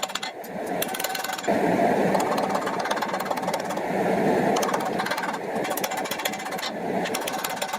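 Steady mechanical running with a fast, continuous rattle, stepping up in level about a second and a half in.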